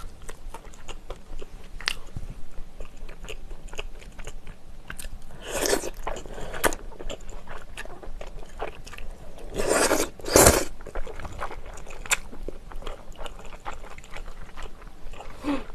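Close-up eating sounds: wide Chinese glass noodles being slurped and chewed, with many small wet mouth clicks and two longer, louder slurps about five and ten seconds in.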